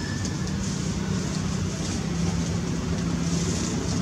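A motor engine running steadily nearby, a low even hum over a haze of background noise.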